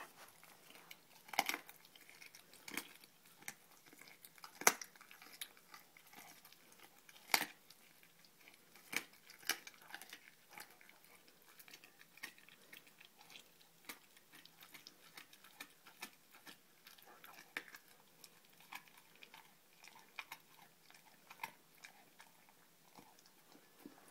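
A Formosan mountain dog chewing and crunching on a raw turkey neck: irregular wet chews broken by sharp crunches, the loudest few in the first ten seconds and softer, quicker chewing after.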